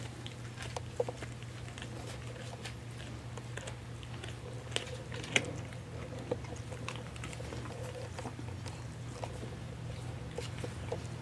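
A husky gnawing and crunching a hard Purina Busy Chewnola chew treat: irregular crunches and clicks of teeth on the treat, the loudest about a second in and again about five seconds in.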